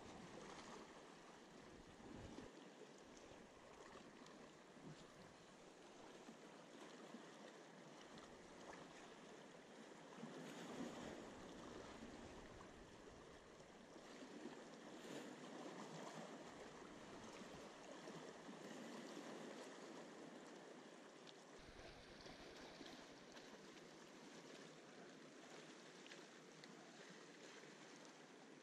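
Faint sea water washing against shoreline rocks, swelling and easing every few seconds.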